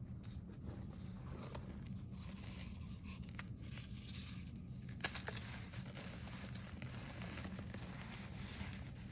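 Green-dyed gym chalk crumbling and crunching as bare hands squeeze it and break pressed chunks apart: soft powdery crackles with a few sharper cracks, the clearest about five seconds in, over a low steady hum.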